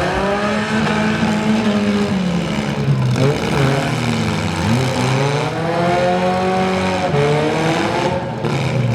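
Several four-cylinder demolition derby car engines revving at once, their pitches rising and falling over one another.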